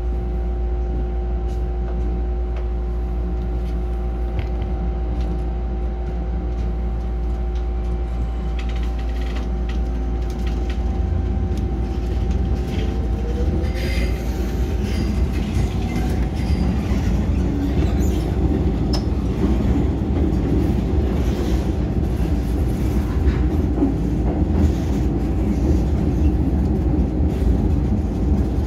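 MTR Island Line M-Train (A258/A273) running, heard from inside the car: a steady low rumble with a constant hum of two tones. About twelve seconds in, a tone rises in pitch and the wheel-on-rail noise grows louder, with scattered clicks and knocks from the track.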